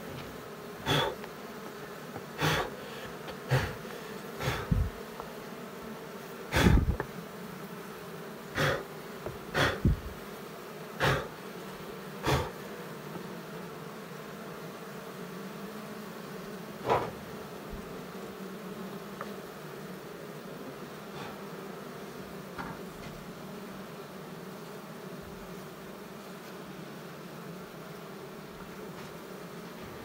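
A colony of Asian honey bees (Apis cerana) humming steadily in an opened wall-cavity hive. About a dozen brief loud bumps break in over the first 13 seconds, with one more near 17 seconds, then only the steady hum.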